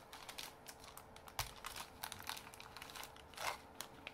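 Clear plastic wrapper crinkling and crackling in the hands as a spool of twine is handled and taken out of it. A run of small irregular crackles, with a sharper snap about a second and a half in and a longer crinkle near the end.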